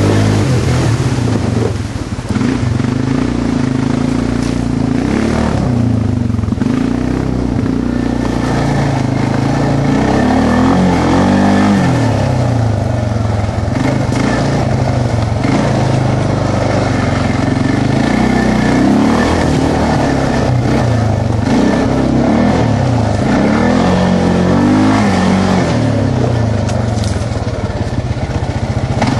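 Quad (ATV) engine running under load on a rough trail, its revs rising and falling over and over as the throttle is opened and eased, heard from on board.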